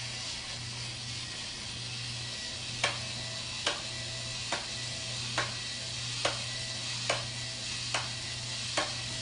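Toy drill running with a steady whir, a sharp click repeating a little faster than once a second from about three seconds in.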